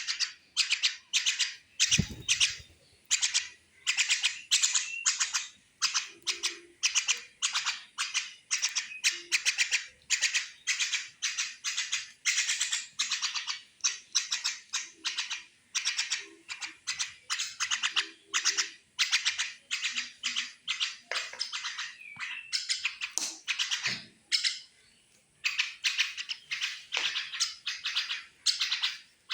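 Common mynas giving rapid, harsh chattering calls, several short calls a second in near-unbroken runs, with one pause of about a second and a half late on.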